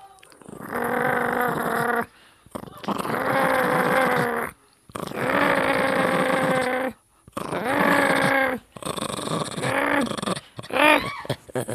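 Small dog growling in a run of about six drawn-out, tonal growls with short pauses between them. The first growls hold a steady pitch for one to two seconds; the last ones are shorter and rise and fall.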